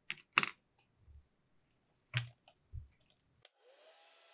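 Paintbrushes clicking as they are laid down on a table, then a couple of duller knocks. Near the end a hair dryer is switched on, its motor rising in pitch and settling into a steady blowing hiss, used to dry the watercolor painting.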